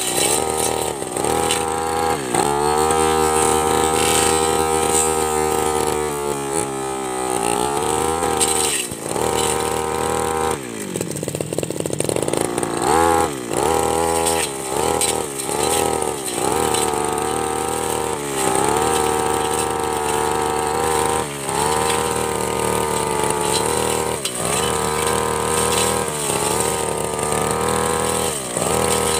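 Backpack brush cutter with a metal blade, its small engine revving up and dropping back again and again as the blade cuts through thick grass and cassava stems. A little before the middle it falls back towards idle for a couple of seconds, then revs up again.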